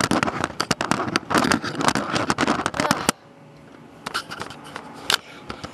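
Camera handling noise: the microphone is rubbed and scraped, a dense crackle for about three seconds that then drops off to a quieter stretch with a few clicks.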